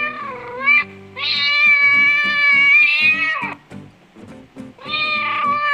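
Domestic cat meowing over background music: a meow ending just after the start, a long drawn-out meow of about two seconds, then another meow near the end.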